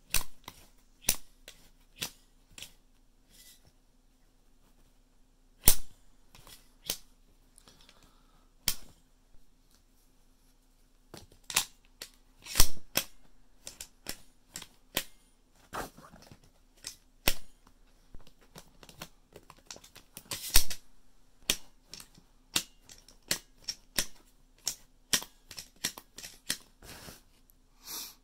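Irregular sharp metal clicks and clacks from a Beretta 1301 Tactical shotgun's pro-style lifter and loading port being pressed by a thumb, with 12-gauge shells handled and pushed into the magazine tube; the loudest clacks come about twelve and a half and twenty and a half seconds in.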